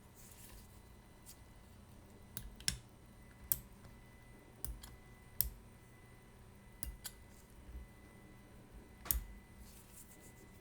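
Small sharp clicks and taps of watchmaker's hand tools against the parts of a wristwatch movement, irregularly spaced, about a dozen, with a faint hiss near the start and near the end.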